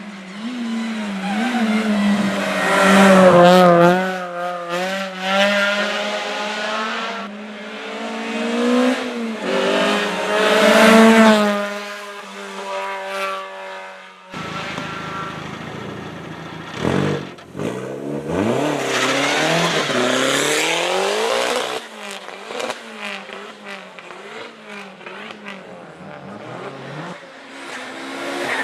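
Hill-climb race cars accelerating hard past one after another, each engine revving up and dropping back repeatedly through gear changes. The sound changes abruptly about halfway in as one car gives way to the next.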